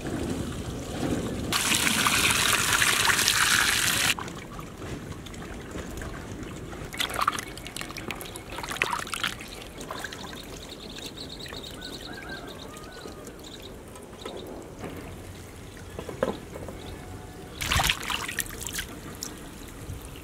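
Water pouring into a steel basin for about two and a half seconds, then intermittent splashing and dripping as bell peppers and tomatoes are rinsed by hand in the water, with a brief burst of splashes near the end.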